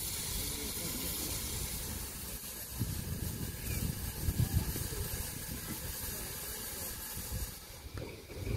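Steam hissing steadily from the side of standing steam locomotive 7F No. 53808, thinning out near the end, with an uneven low rumble in the middle.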